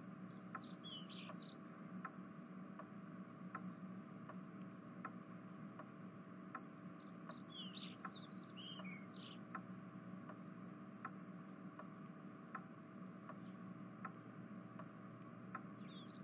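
Faint room ambience: a clock ticking evenly, about once every three-quarters of a second, over a low steady hum. Birds chirp briefly about a second in and again around eight seconds in.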